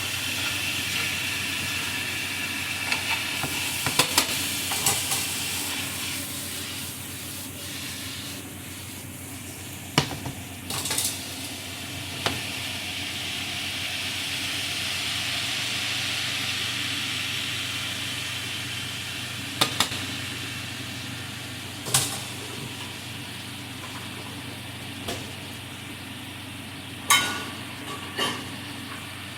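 Food sizzling in hot oil in a frying pan. The sizzle swells and eases, and a metal utensil clicks and knocks against the pan about a dozen times as the food is stirred and turned.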